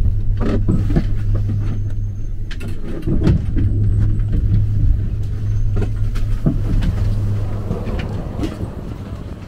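Station machinery of a Poma detachable gondola running: a steady low hum from the drive and the tyre conveyors that move the cabins, with a few clunks and rattles as cabins roll through the station. The hum softens near the end.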